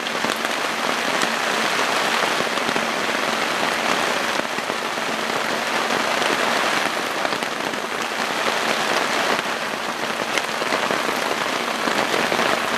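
Steady rain pattering on a tarp shelter overhead, an even hiss with scattered drop ticks.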